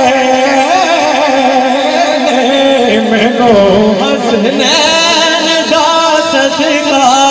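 A man singing a Punjabi naat live through a microphone and PA system, drawing out long, ornamented wavering notes over steady held tones beneath.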